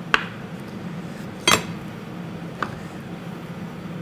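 Kitchen knife slicing through cooked potato dumplings and knocking on a plastic cutting board: three sharp knocks roughly a second apart, the middle one loudest, over a low steady hum.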